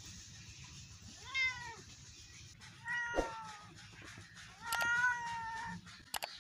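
Orange tabby domestic cat meowing three times, the third call the longest and loudest. Two sharp clicks come near the end.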